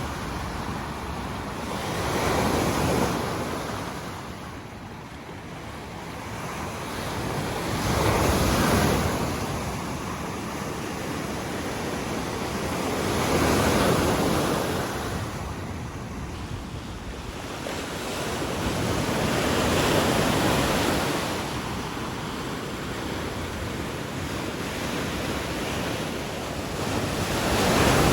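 Lake Michigan waves breaking on a sandy beach, the surf swelling and fading in a surge every five or six seconds, with some wind on the microphone.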